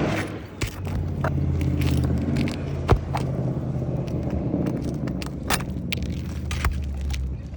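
Steady engine drone with scattered sharp clicks and scrapes of a flat bar working asphalt shingles loose and prying at roofing nails.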